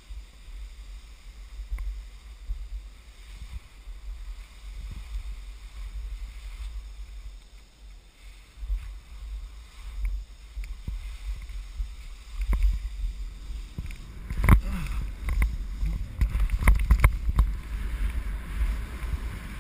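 Skis swishing and scraping through wet, heavy slushy snow on a steep descent, with wind rumbling on the camera's microphone. The hiss gets louder in the second half, broken by sharp scrapes as the skis cut turns.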